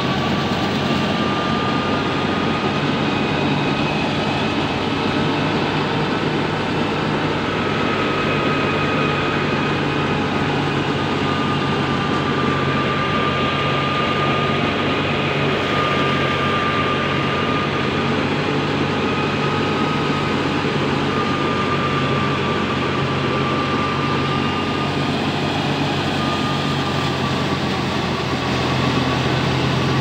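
Tractor-driven threshing machine running steadily as sheaves are fed in: the continuous drone of the tractor engine and thresher, with a faint high whine that wavers slightly.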